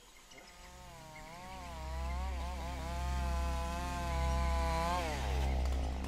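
Chainsaw running under load, its engine pitch dipping and recovering as it cuts, then dropping away about five seconds in. A low steady hum runs underneath.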